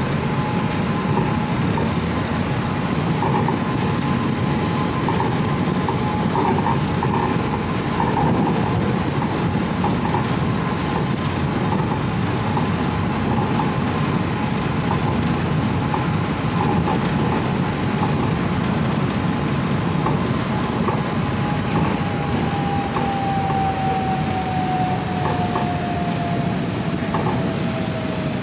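Cabin noise of an MRT Pink Line monorail train in motion: a steady running rumble with a thin motor whine that falls steadily in pitch over the last several seconds as the train slows.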